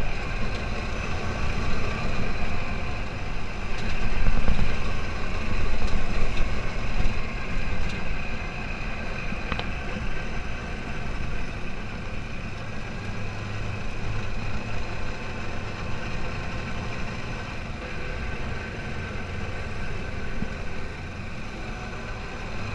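Open dune buggy driving along a bumpy dirt track, heard from on board: the engine running steadily under the noise of the ride, a little louder for a few seconds early on and then easing off.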